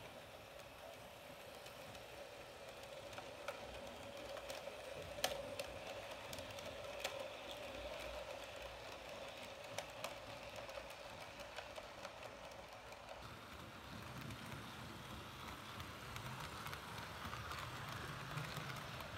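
Model passenger train running on its track: a steady motor hum with a few sharp clicks of wheels crossing rail joints, turning into a louder, rougher rumble and clatter in the second half as the coaches pass close by.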